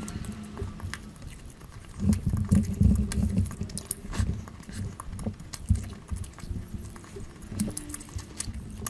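Close-miked eating sounds: wet chewing and lip-smacking of curry and rice, with many small mouth clicks, louder for a stretch about two seconds in.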